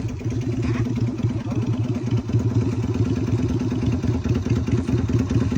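A motorbike engine idling steadily, with an even, rapid pulse.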